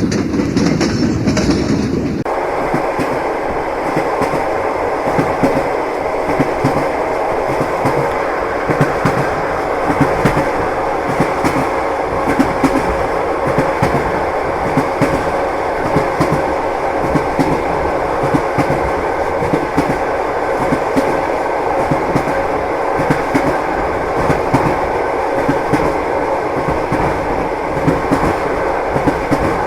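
Railway carriage wheels clattering over rail joints in a steady clickety-clack, with a faint steady tone under it. The sound changes abruptly about two seconds in.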